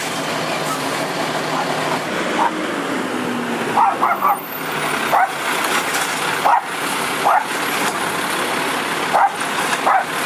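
An Autocar WXR garbage truck runs steadily while its Heil Rapid Rail side-loader arm reaches out to the curb and lifts a trash cart. About ten short, sharp sounds, louder than the truck, come over it from about two seconds in.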